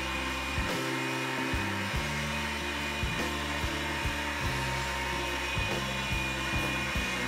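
Electric meat grinder running steadily, its motor whirring as boiled potatoes are pushed through and minced into strands.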